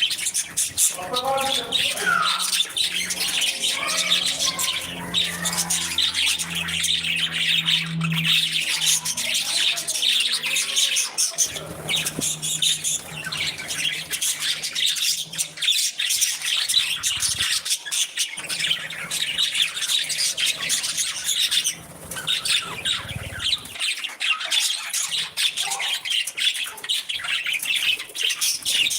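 A group of budgerigars chattering and chirping in a continuous, busy warble of rapid high notes and squawks.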